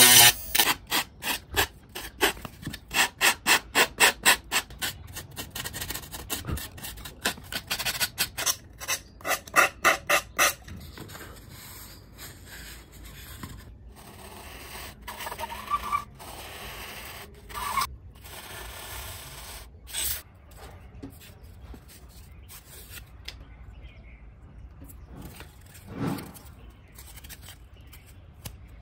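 Thermocol foam being rubbed and sanded in loud, regular strokes, two to three a second, for about ten seconds, then quieter scraping and scratching on the foam, including a pencil marking lines on it.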